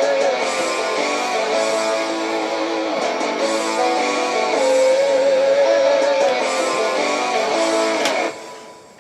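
Karaoke backing track of a heavy metal song playing its instrumental ending on electric guitars, with a long wavering lead note held twice, then cutting off sharply about eight seconds in and ringing away.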